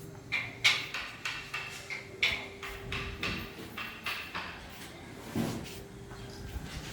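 A series of sharp taps or knocks at irregular intervals, roughly two or three a second, over a faint steady hum.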